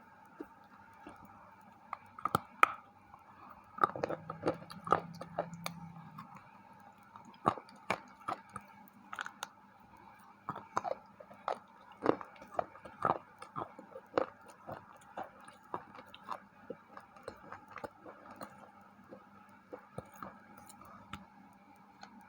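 Close-up biting and chewing of a white KitKat wafer bar: irregular sharp crunches of the crisp wafer, with wet mouth sounds between them.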